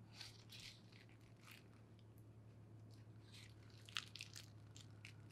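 Near silence: faint, scattered rustles of large philodendron leaves being handled, with one small click about four seconds in, over a steady low room hum.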